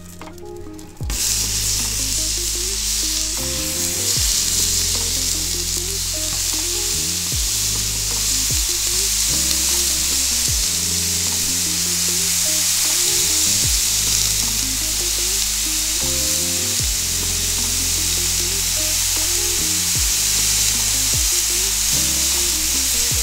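Burgers sizzling on a Blackstone flat-top griddle, a steady sizzle that starts abruptly about a second in. Background music plays under it.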